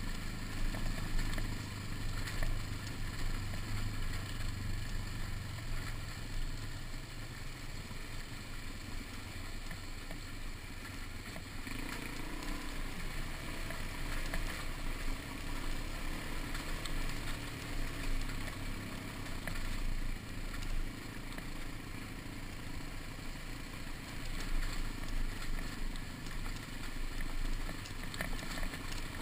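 Dirt bike engine running as the bike rides over a rough dirt track, its level rising and falling a little with the throttle, under a steady rushing noise of wind and track.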